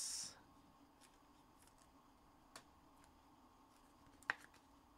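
Near silence broken by a few faint clicks and taps of trading cards being handled and set down, the sharpest click coming near the end.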